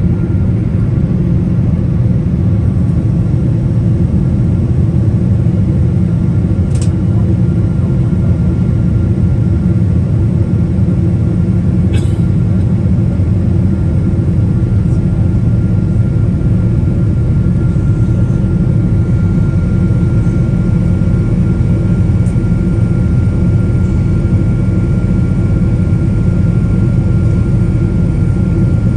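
Steady deep cabin roar of a Boeing 777-200ER in flight, heard from a window seat over the wing: its Rolls-Royce Trent 892 engines and the airflow over the fuselage. A thin steady whine sits above the roar, and two faint clicks come a few seconds apart.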